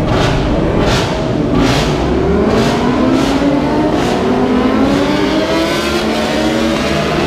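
A pack of superbike engines accelerating together, several engine notes overlapping and rising in pitch. Short rushes of hiss come about once a second in the first few seconds.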